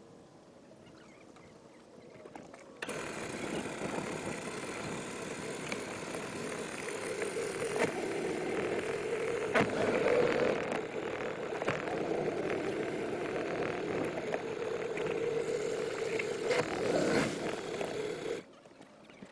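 Mercury Black Max 175 hp V6 two-stroke outboard running at low boat speed, a steady engine sound mixed with water noise. It comes in suddenly about three seconds in, with a few sharp clicks along the way, and cuts off shortly before the end.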